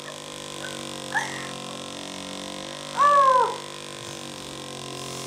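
Two short, high-pitched whimpers, each rising and then falling in pitch, the second and louder one about three seconds in, over a steady background hum.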